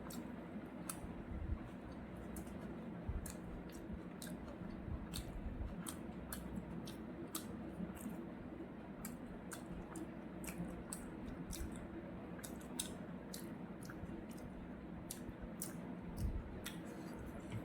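Close-miked chewing and wet mouth clicks of a person eating, with many irregular short smacks and crunches over a steady low background hum.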